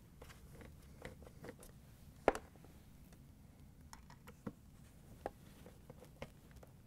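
Hand Phillips screwdriver driving screws into the refrigerator solenoid's metal mounting bracket: faint scattered clicks and scrapes, with one sharper click a little after two seconds in.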